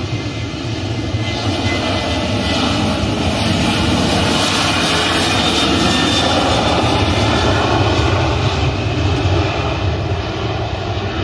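Airliner passing close by: a loud, steady rush of engine noise that grows louder, peaks past the middle and begins to fade near the end.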